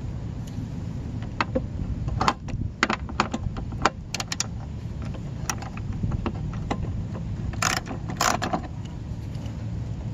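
Socket ratchet clicking in short, irregular runs while a small bolt holding a mower's plastic guard is backed out, with two longer rasps of clicks near the end.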